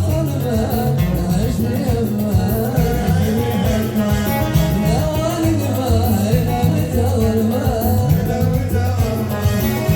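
Lahji-style Yemeni wedding zaffa song: an electronic keyboard (org) plays an ornamented, wavering melody over a fast, steady drum beat, with a male singer's voice.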